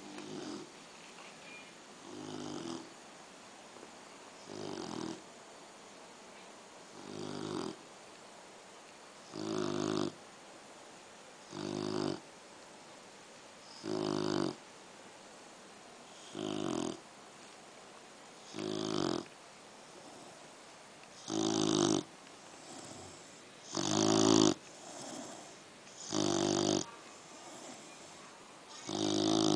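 Three-month-old Pit Bull puppy snoring like a person, one short rasping snore on each breath about every two and a half seconds. The snores grow louder in the second half.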